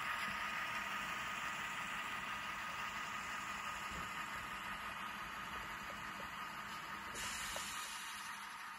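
Sound-equipped N scale Bachmann Dash 8-40CW diesel locomotive running, its DCC sound decoder playing a diesel engine through the model's tiny speaker, slowly fading as the locomotive moves off.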